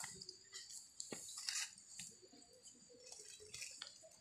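Faint small splashes, drips and clinks of water as hands grope about in shallow pond water, a few short irregular sounds over a steady high background hiss.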